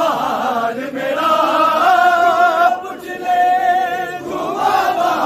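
Shia noha chanted unaccompanied by a male reciter, with a crowd of mourners joining in chorus. Long held, slightly wavering notes are broken by short breaths, with no instruments.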